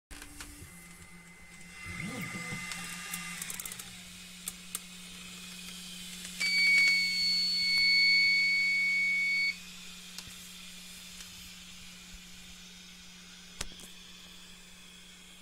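Zortrax 3D printer: its stepper motors whine in steady tones that glide down and stop within the first few seconds, then a single long electronic beep sounds for about three seconds over a steady fan hum.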